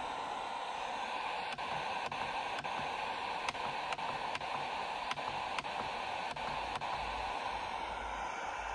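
Sony ICF-SW7600 receiver on FM giving a steady hiss of static from its speaker, with no station coming in, and a run of faint clicks about twice a second as the frequency is stepped up and back. The hiss is the radio failing to lock onto any station, a tuning fault that the owner traced to dried-out electrolytic capacitors.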